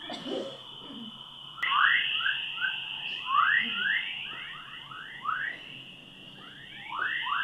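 Electronic soundtrack effect: a steady high-pitched tone with quick rising bleeps repeating over it, a few per second, growing louder about a second and a half in.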